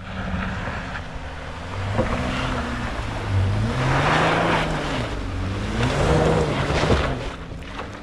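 Jeep Wrangler's engine revving up and down under load as it climbs a steep dirt slope, with tyres spinning and throwing dirt. It rises and falls in pitch several times, is loudest around the middle, and fades near the end as the Jeep crests the hill.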